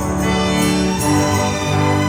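Orchestral film score: held string and brass notes, the melody moving about every half second.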